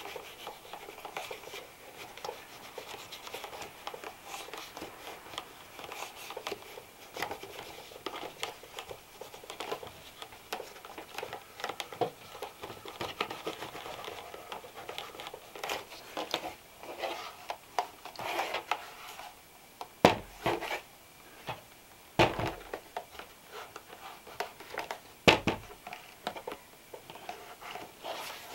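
Cloth or brush rubbing and scratching over a leather shoe during hand cleaning and care, in a steady run of small strokes and rustles. Three sharp knocks stand out near the end, such as a bottle, brush or shoe being set down.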